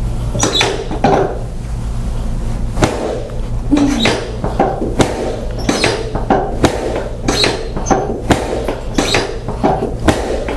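Chiropractic drop table: its sections snap down under repeated thrusts over the SI joints, sacrum and lower back, giving a string of sharp clacks about one to two a second over a steady low hum.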